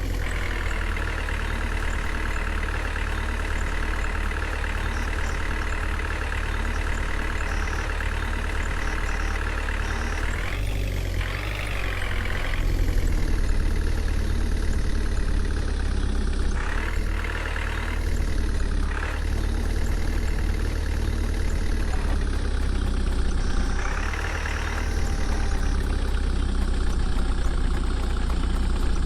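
Diesel engine of heavy machinery running steadily with a low rumble, its pitch shifting about a third of the way in and revving up briefly a few times in the second half.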